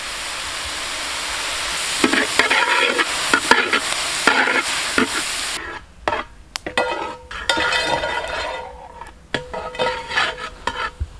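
Sliced shallots and onions sizzling in hot coconut oil in a large metal uruli while a long-handled ladle stirs and scrapes them against the pan. About halfway through the steady sizzle drops away suddenly, leaving mostly scattered scraping and clicking strokes.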